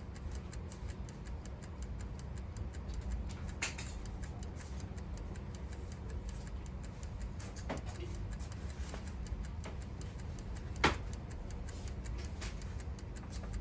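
Schumacher SC1565 battery charger running: its mechanical wind-up timer ticks steadily over a low steady hum, a sign the charger is switched on and working. A few louder clicks stand out, the loudest about 11 seconds in.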